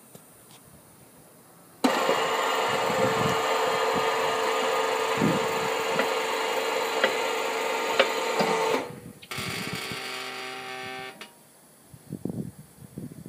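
Electric motor of a car lift's hydraulic pump switching on abruptly, running steadily with a constant tone for about seven seconds, then cutting off; a quieter hum follows for about two seconds.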